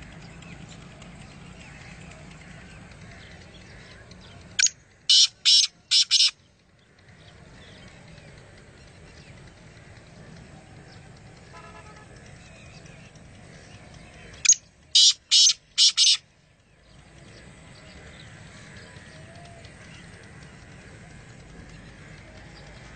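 Black francolin (kala teetar) calling twice, about ten seconds apart: each call is a loud, high-pitched phrase of about five short notes in quick rhythm, lasting under two seconds.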